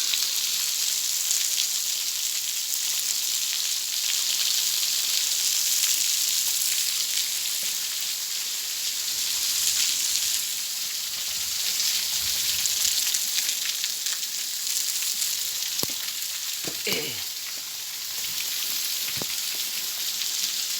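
Waterfall spray falling like rain, a steady hiss, with a few faint clicks and a short downward-sliding sound near the end.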